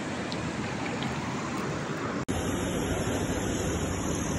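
Shallow river water rushing steadily over stones, with a momentary break a little over two seconds in.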